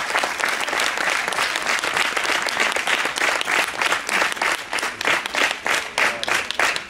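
Audience applauding, the clapping becoming more separate and evenly spaced in the second half.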